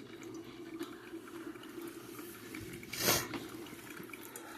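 12-cup drip coffee maker brewing plain water: faint steady bubbling and dripping of the heating and brewing cycle, with one short, loud hiss about three seconds in.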